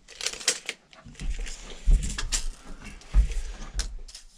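Knocks and clatters of lumber being handled, with two heavier low thumps about two and three seconds in.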